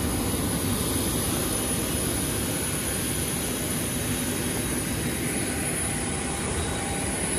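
Jet aircraft noise on an airport ramp: a steady rushing noise with a high, steady whine.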